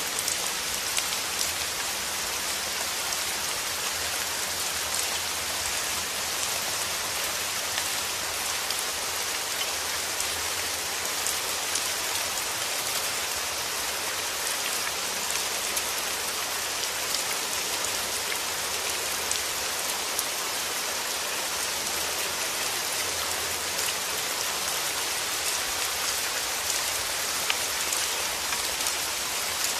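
Steady rain falling: an even hiss with scattered small drop ticks.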